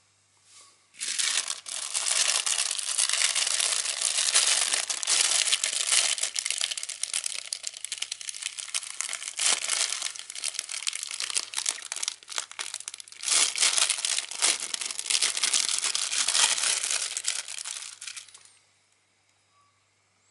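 Thin clear plastic bag crinkling as hands pull it open and work the pen out. A dense crackle starts about a second in, dips briefly about two-thirds through, and stops shortly before the end.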